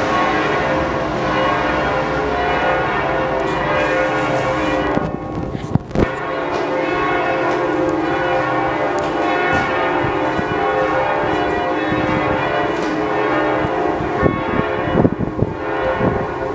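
Several large church bells pealing together, their overlapping tones ringing on steadily, with a short break about five seconds in.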